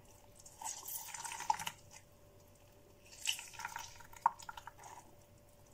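A half grapefruit squeezed by hand over a plastic jug, its juice dripping and splashing into the juice below. The sound comes in two short goes, with a small sharp click in the second.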